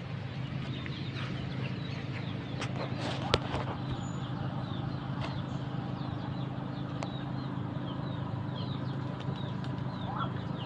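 Birds chirping over and over in short calls, over a steady low hum, with a single sharp knock about three seconds in.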